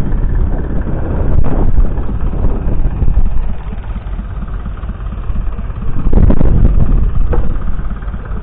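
McCormick International B275 tractor's 2.3-litre four-cylinder diesel engine running steadily, growing louder for a stretch about six seconds in.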